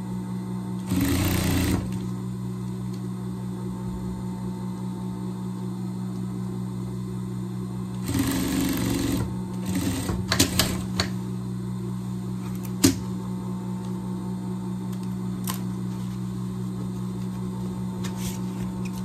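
Industrial straight-stitch sewing machine stitching in two short runs, about a second in and again about eight seconds in, over a steady low hum. Several sharp clicks follow in the second half.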